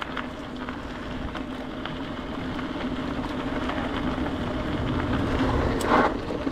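An e-bike rolling on a gravel path: a steady crunch of tyres with a faint, even hum from the Bosch drive, growing a little louder. About six seconds in there is a short scraping burst as the brakes are applied.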